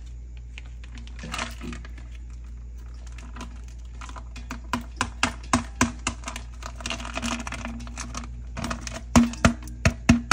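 Plastic bag rustling and sharp clicks and knocks as cream cheese is squeezed out of its bag and dropped into a large stainless-steel mixer bowl, the loudest knocks near the end, over a steady low hum.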